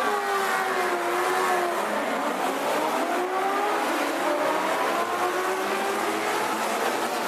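Historic touring and muscle cars, Ford Mustangs among them, racing past with several engines running hard at once. Their engine notes slide down and then rise again as the cars go by.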